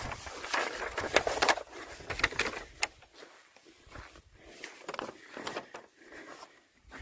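Footsteps, quick and irregular for the first three seconds or so, then fewer and quieter.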